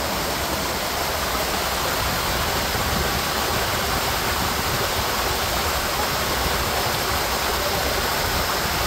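Steady rushing of running water at a water park, an even, unbroken noise.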